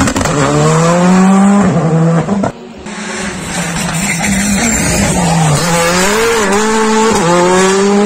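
Rally car engines under hard acceleration: a car accelerates past with its pitch rising and dropping at an upshift about one and a half seconds in. The sound breaks off suddenly, then a second car approaches, revving up and down through gear changes.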